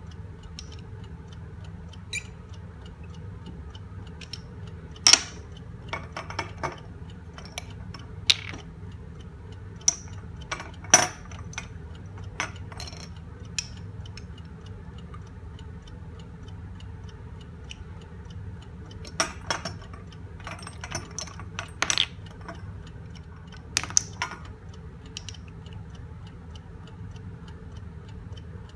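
Glass test tubes clinking and tapping sharply, a dozen or so separate knocks, as they are handled and their liquid is poured from one tube into another. Under them runs the steady ticking of a Smiths stop clock.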